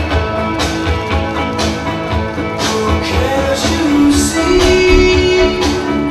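Music with a steady beat and a pulsing bass line.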